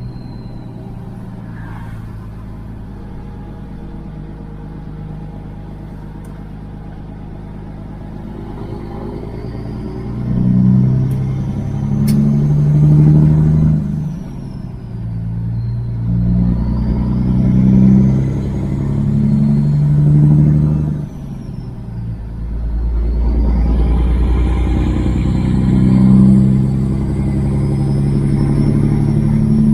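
Kenworth W900 semi-truck's diesel engine idling steadily, then from about ten seconds in pulling away and accelerating through the gears. The engine note climbs and drops off briefly at each shift, twice, with a faint high whistle rising and falling along with it.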